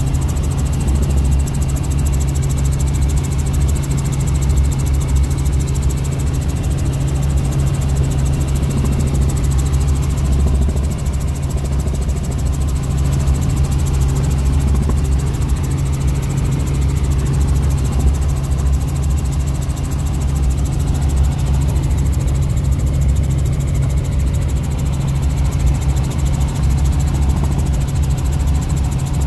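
Light helicopter in cruise flight, heard from inside the cabin: the engine and rotors make a loud, steady low drone.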